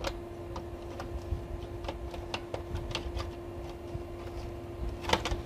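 Small plastic clicks and scrapes as a Canon G1020's black plastic maintenance cartridge (waste-ink box) is handled and slid into its slot in the printer, with a few sharper clicks about five seconds in.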